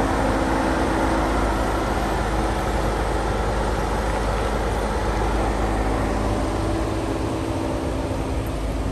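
Jeep Wrangler Sahara running, heard from inside the cabin: a steady low hum with an even hiss over it.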